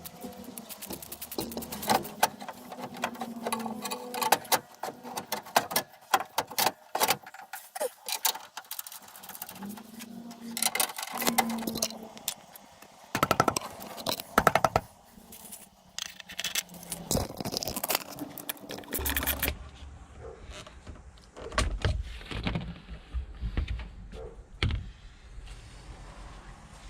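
Metal spanners, sockets and bolts clinking, rattling and scraping in irregular bursts of sharp clicks while a water pump is bolted onto a Mazda 13B rotary engine. About two-thirds of the way through the sound changes to duller knocks over a low rumble.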